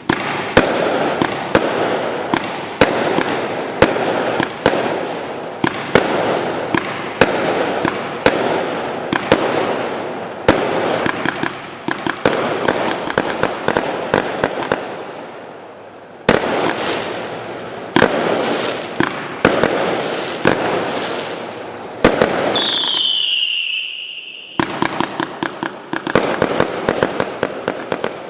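A 249-shot consumer firework cake of 0.8-inch calibre firing rapid volleys of launches and bursts, sharp shots over a continuous hiss. About 22 seconds in, a whistle falls in pitch for about two seconds.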